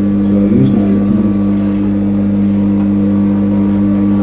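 Loud, steady electrical hum at an unchanging low pitch.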